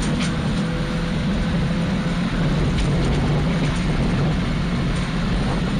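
Subaru Impreza rally car's flat-four engine running steadily under load at race speed, heard from inside the cabin, with constant tyre and road noise.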